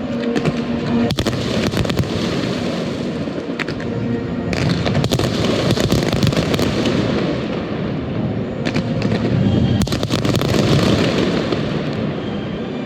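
Fireworks display: a dense, continuous barrage of bursts with rapid crackling pops, swelling into heavier volleys about four and a half seconds in and again near nine seconds.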